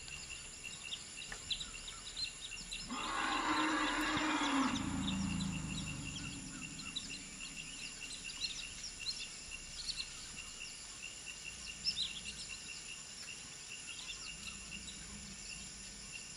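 An African forest elephant calls about three seconds in: a harsh, noisy call sliding down into a lower rumble that fades over a few seconds. Throughout, insects keep up steady high tones and birds chirp.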